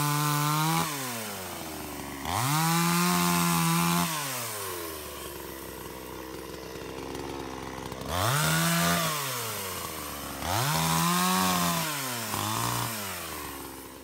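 Two-stroke gas chainsaw cutting through a felled trunk in bursts. The engine revs up to full throttle, holds while the chain bites, then drops back to a low idle between cuts, four times over, with a short throttle blip near the end.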